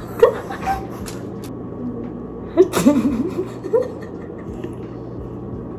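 A young woman giggling and making short laughing vocal sounds, in bursts near the start and in the middle, over a steady low hum.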